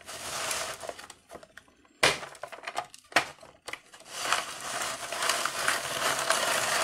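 Hand crank of a Tyco Doctor Dreadful Ice Scream Machine being turned: rasping plastic scraping as the frozen mix is scraped off the drum, with many small clicks and a sharp click about two seconds in from the plastic gears slipping out of mesh.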